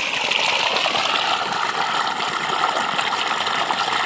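Irrigation water gushing steadily from the open end of a pipe and splashing into a flooded field channel.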